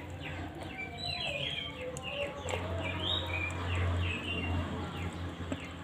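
Small birds chirping again and again, short quick falling chirps, over a low steady hum.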